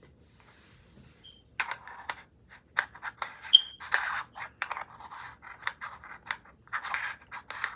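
Hands handling a camera and an accessory being fitted onto it: a quick run of small clicks, taps and plastic scrapes that starts about a second and a half in, with a short squeak partway through.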